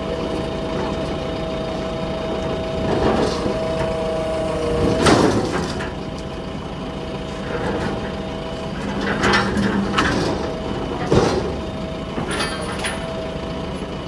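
Backhoe loader's diesel engine running steadily with a constant whine, while a steel road-roller wheel is lowered on a chain into a steel truck bed, giving heavy metallic clanks about five seconds in and again about eleven seconds in, with smaller knocks between.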